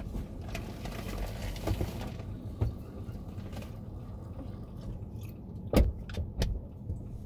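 A stationary car's engine idling, heard as a steady low rumble inside the cabin; the outside noise drops away about two seconds in, and three sharp knocks come close together near the end.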